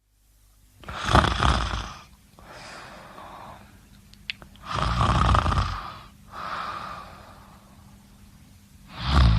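A sleeping person snoring: two loud, rattling snores about four seconds apart, each followed by a softer breath, with a third snore starting near the end.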